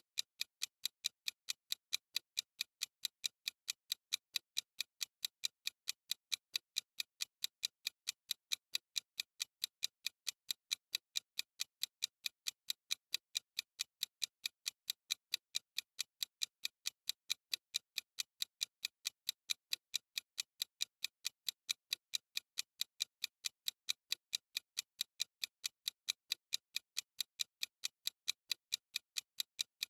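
Clock ticking sound effect: a steady, even tick-tock of sharp, high clicks, about two a second.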